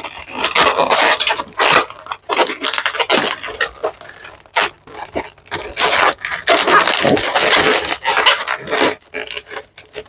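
Latex modelling balloons squeaking and rubbing against each other as a long white balloon is twisted and wrapped into a balloon head by hand, in irregular bursts.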